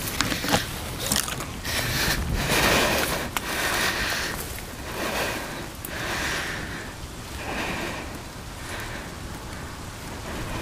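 Footsteps and rustling through wet brush and dead leaves on the move, crackling sharply at first, then a softer rustle about once a second that fades toward the end.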